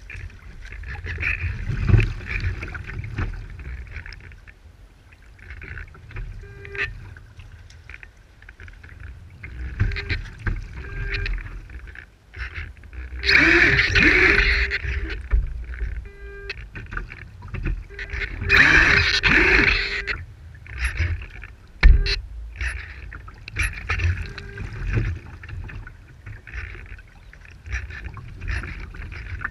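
Water rushing and splashing along the hull of a radio-controlled IOM racing yacht sailing through chop, with wind on the microphone. Two louder surges of spray come about halfway through, a few seconds apart, and a sharp knock follows a little later.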